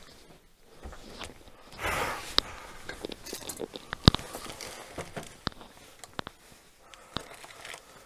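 Scattered sharp clicks and knocks with crackling and rustling between them, picked up on a sound recording. A louder rustle comes about two seconds in, and the sharpest click about four seconds in.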